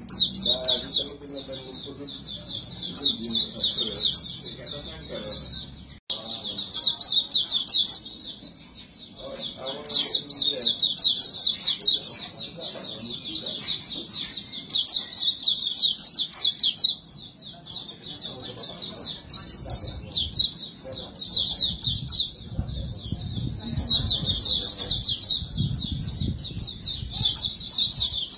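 A white-eye (pleci) singing a long, rapid, high-pitched twittering song, nearly unbroken, with a brief break about six seconds in.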